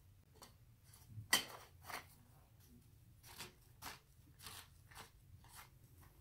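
Faint clicks and scrapes of a shower-caddy pole being handled and worked through a wire basket's ring, a scattered series of short taps, the sharpest about a second in.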